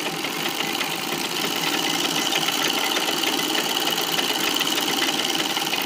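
Sewing machine with a buttonhole attachment running fast and steadily, stitching a zigzag buttonhole; the stitching stops right at the end.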